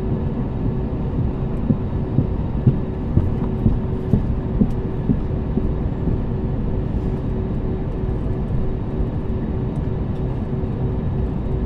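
Jet airliner cabin noise while the aircraft sits at idle on the ground: a steady low rumble with a constant hum. A run of dull knocks sounds about two to five seconds in.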